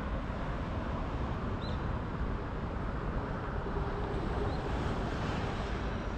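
Steady outdoor city ambience: a continuous low rumble with a couple of faint, short high chirps.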